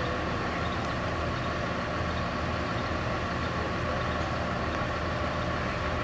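Heavy engine running steadily: a constant low drone with a faint, unchanging high tone above it.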